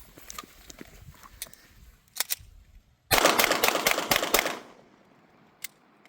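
Gunshots: two sharp cracks about two seconds in, then a rapid string of shots lasting about a second and a half, and one more single crack near the end.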